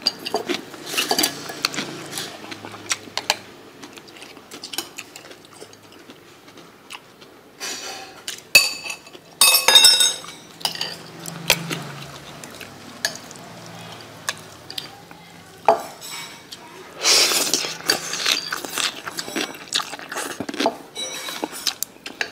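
Eating utensils clinking and scraping against a bowl as noodles are stirred and eaten: scattered clicks throughout, with louder clattering bursts midway and again later on.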